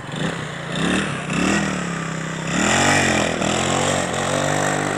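Motorcycle engine revving hard while being ridden in stunts, pitch climbing and dropping in several surges, then held at steady high revs for the last second or so.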